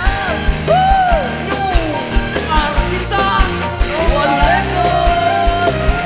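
Live dangdut band playing: a woman singing a gliding melody over electric guitars, electric bass, keyboard and a steady drum beat with cymbals.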